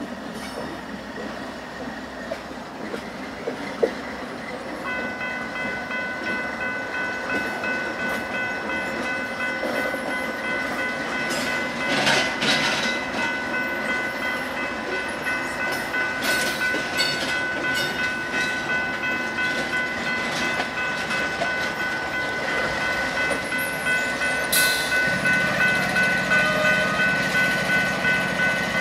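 Canadian Pacific diesel locomotives rolling slowly past with their engines running. A steady high-pitched squeal from the train sets in about five seconds in and holds. Toward the end, rhythmic clicking of wheels over rail joints and a deeper engine note come in.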